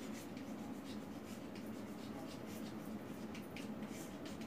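Chalk scratching and tapping on a blackboard as a hand writes words, in short irregular strokes.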